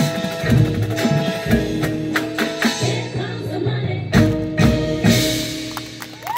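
Music: sustained held chords with drum hits.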